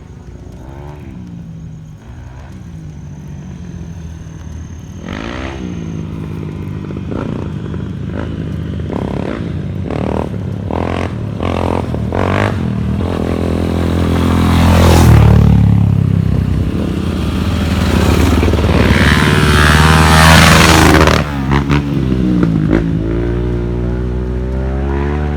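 Royal Enfield Himalayan motorcycle's 411 cc single-cylinder engine running under way. It revs up and down repeatedly with gear changes and is loudest about fifteen and twenty seconds in, with scattered knocks and clatter.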